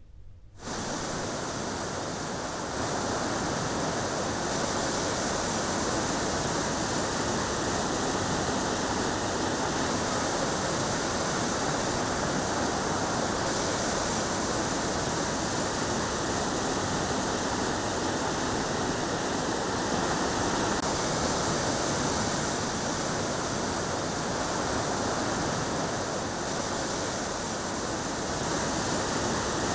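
Muddy floodwater of the Budameru canal rushing through a breach in its embankment. It makes a steady, loud rush of water that begins about half a second in.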